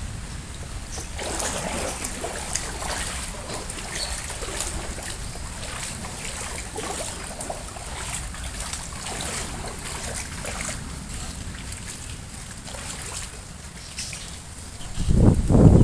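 Water trickling and splashing, an irregular spatter with no pauses. About a second before the end a much louder low rumble starts.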